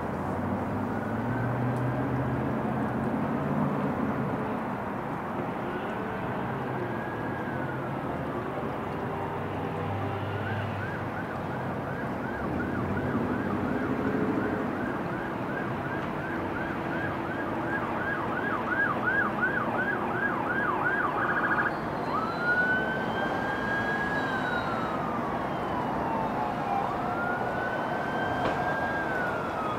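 Emergency vehicle siren: slow rising and falling wails, switching about ten seconds in to a rapid yelp for roughly ten seconds, then back to the wail, over a steady low rumble.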